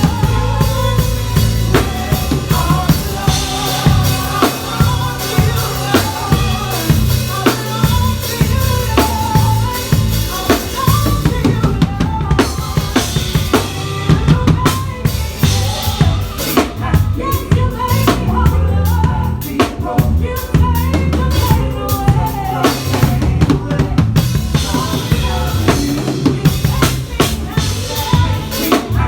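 Live drum kit playing with a church band: dense kick, snare and rimshot hits over a steady bass line and sustained melodic instruments.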